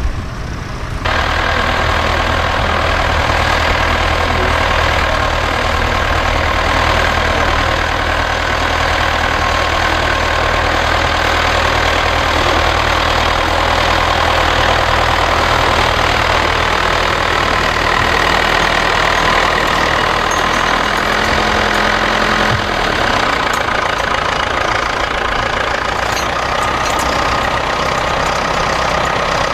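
Vintage tractor engine running steadily at close range as it pulls a mounted plough.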